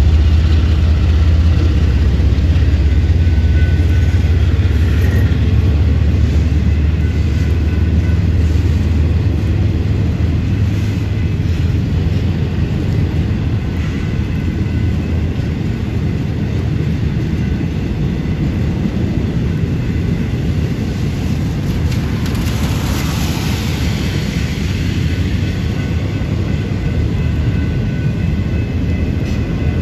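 A Florida East Coast freight train passing. The deep hum of its GE ES44C4 diesel locomotives is loud at first and fades after a few seconds, leaving the steady rumble of intermodal cars rolling over the rails. A brief rushing swell comes about two-thirds of the way through.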